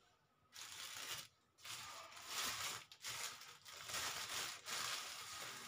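Plastic packet crinkling and rustling as it is handled, in several stretches of a second or so each with short pauses between.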